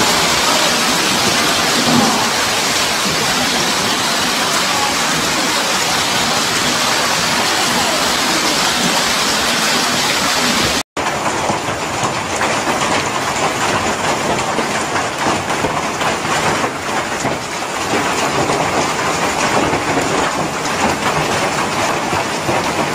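Hail and heavy rain falling steadily, a dense continuous hiss. It cuts out for an instant about halfway through, then goes on just as thick.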